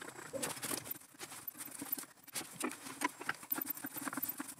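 Small metal lathe drilling and then tapping a steel bar, with a faint steady hum under irregular light clicking and crackling of metal chips and tooling.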